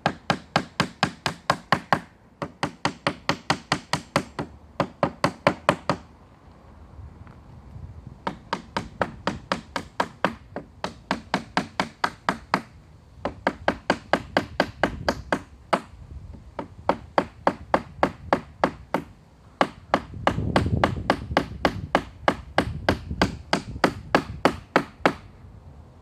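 Claw hammer striking nails in pallet wood in quick runs of about four or five blows a second with short pauses between, knocking protruding rusty nails down flat.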